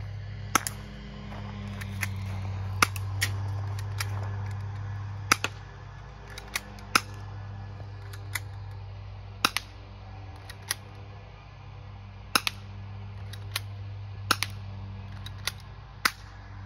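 Colt 1908 Vest Pocket airsoft pistol firing: a string of sharp snaps and clicks, roughly one a second and sometimes in quick pairs, with a steady low hum underneath.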